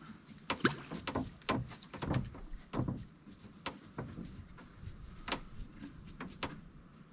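Irregular knocks and clicks of gear being handled in a small boat, about a dozen sharp taps scattered through several seconds, the louder ones with a short low thud.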